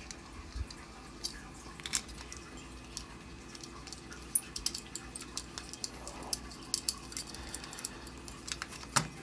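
Scattered light clicks and taps of small metal clock parts against a polished agate slice as a brass hex nut is fitted onto the clock movement's threaded shaft by hand.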